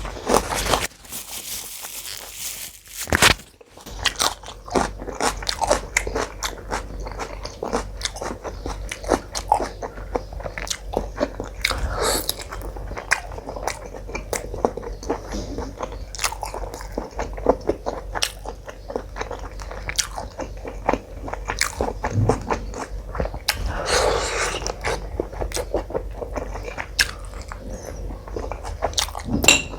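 A person chewing and biting food close to the microphone, a continuous run of wet mouth smacks and crunches.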